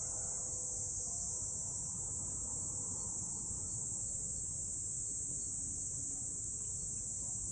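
Steady, high-pitched chorus of insects droning without a break, over a low rumble. The last faint notes of the loudspeaker chime die away about a second in.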